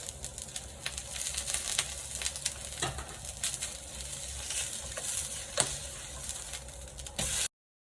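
Food sizzling as it fries in a pan, stirred with a utensil that clicks and scrapes against the pan now and then. The sound cuts off suddenly near the end.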